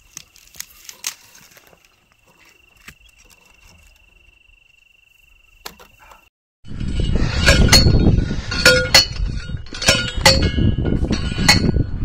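Faint at first, with a steady thin high whine and a few light clinks. After a sudden cut about six and a half seconds in, a loud rumble with repeated metallic rattles and clinks, as of a vehicle jolting along a rough dirt track.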